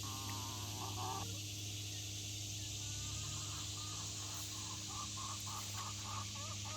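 Laying hens clucking: a couple of short bursts of calls, then a run of short, evenly repeated clucks over the last few seconds, the fussing of hens that are not happy with their coop being shut during the day.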